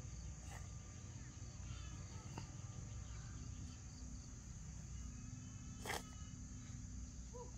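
Steady high-pitched drone of insects chirring outdoors, with one sharp knock about six seconds in.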